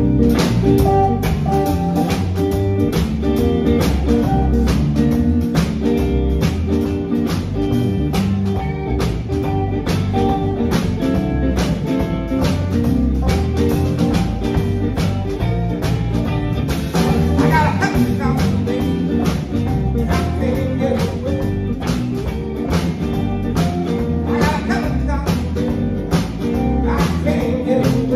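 Live band playing with electric guitars, bass guitar and a drum kit, the drums keeping a steady beat.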